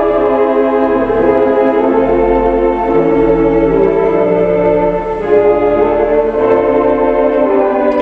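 Theatre organ played live: sustained chords that shift every second or so, with a deep bass note held from about two to five seconds in.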